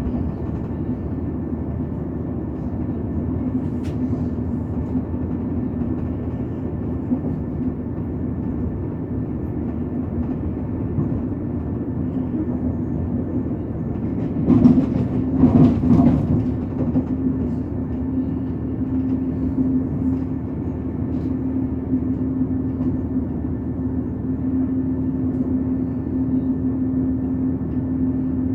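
Passenger train running along the line, heard from on board: a steady rumble with a droning hum. About halfway through comes a louder clattering stretch lasting a couple of seconds.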